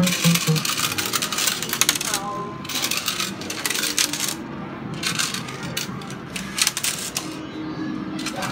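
Electrocoin OXO Super Reels fruit machine paying out: coins clattering into the metal payout tray in rapid runs, with short breaks between the runs.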